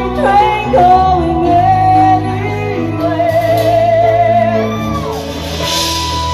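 Live band playing with a woman singing lead over electric guitar, keyboards and drums; she holds long notes, one with a wavering vibrato, rising to a high held note near the end.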